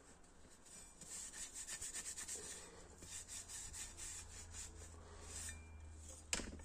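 Cloth wiping over a small steel spade blade in quick, repeated rubbing strokes, with one sharp knock near the end.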